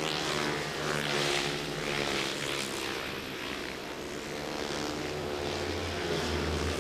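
Speedway motorcycles racing round the track: their 500cc single-cylinder methanol engines make a steady, slightly wavering drone.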